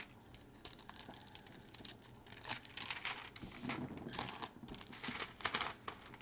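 Clear plastic cover film on a diamond painting canvas being pulled back off the glue and smoothed down by hand, crinkling and rustling in short, irregular strokes.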